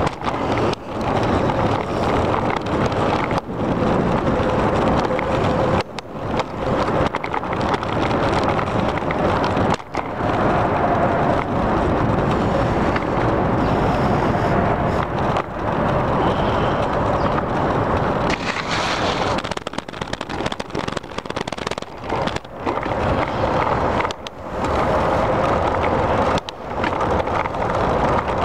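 Steady rush of wind on the microphone and tyre and rattle noise from a bicycle rolling along a paved path, loud throughout, with brief sudden dips every few seconds.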